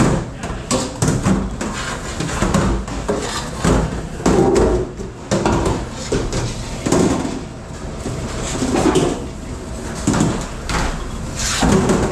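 Dishes, pans and racks clattering and knocking at a kitchen dish station, many irregular knocks over a steady low rumble.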